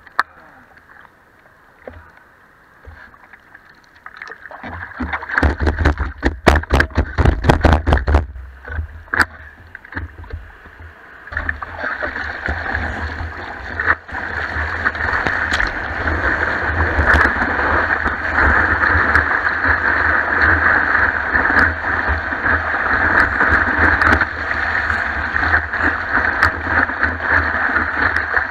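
Seawater heard at water level from a surfboard-mounted camera. From about five seconds there are several seconds of splashing and slapping against the board. From about twelve seconds a steady loud rush of whitewater sets in as the board is carried prone on a broken wave.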